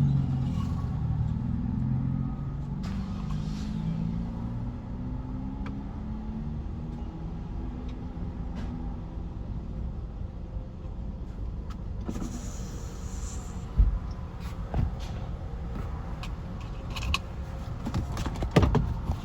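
Car engine running, its low pitch shifting and fading over the first few seconds into a steady low rumble, with scattered clicks and handling noises in the second half.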